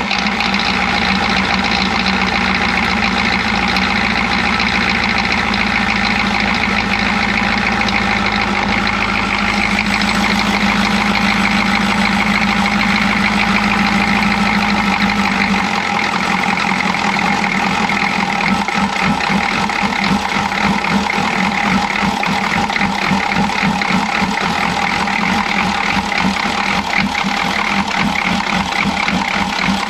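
Chevy G20 van's 6.2 L V8 diesel idling roughly just after a start. About halfway through the low hum drops away and the running turns choppy and uneven: the engine is missing, which the owner puts down to a timing or injection pump problem.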